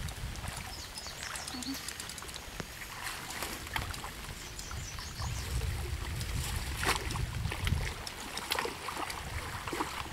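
Water splashing as a hooked carp thrashes at the surface and is scooped into a landing net, several sharp splashes, the loudest about seven seconds in, over a low rumble.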